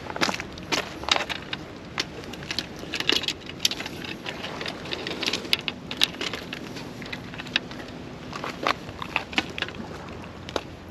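Irregular clicks, knocks and rattles of a just-landed flathead and fishing gear being handled in the boat. A faint low hum sits under the clatter for a few seconds in the middle.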